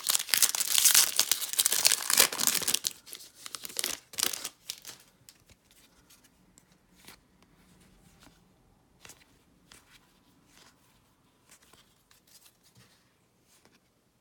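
A baseball card pack's wrapper torn open and crinkled for about four seconds, then faint scattered ticks and rustles of the cards being handled.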